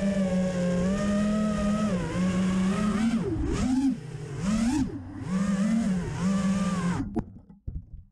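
An FPV quadcopter's four brushless motors (T-Motor F40 III 2306 2400KV) spinning tri-blade props on a 4S battery. They whine steadily, their pitch dipping and rising several times in the middle with throttle changes, then cut off suddenly about seven seconds in.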